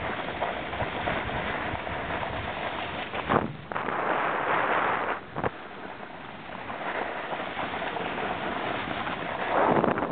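Snowboard riding down a snowy run: a continuous rush of wind on the microphone mixed with the hiss and scrape of the board on snow, swelling in louder scraping surges a few seconds in, around the middle, and near the end.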